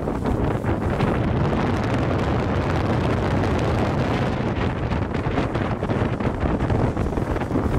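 Wind buffeting the microphone of a camera on a fast-moving follow car, a steady low rush with road noise from the car underneath.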